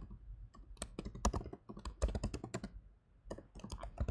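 Typing on a computer keyboard: a run of quick keystroke clicks, with a short lull about three seconds in.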